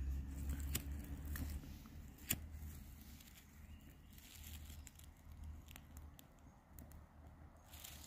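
Faint handling and rustling among dry twigs and forest litter, with a few sharp single clicks, as a long-nosed utility lighter is worked and held lit to paper-towel tinder.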